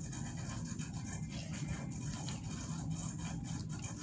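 A toddler gnawing kernels off a corn cob: a run of small scraping crunches and clicks of teeth on the cob, over a steady low hum.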